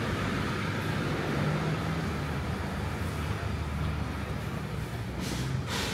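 Street traffic: a steady low rumble of vehicle engines, with a brief hiss about five seconds in.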